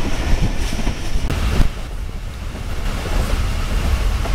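Passenger train running at speed: a steady low rumble of the coach with wind rushing past the open window. It brightens briefly and then drops a little in level about a second and a half in.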